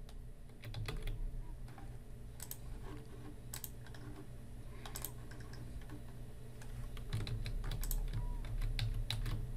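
Computer keyboard being typed on in short, irregular bursts of keystrokes.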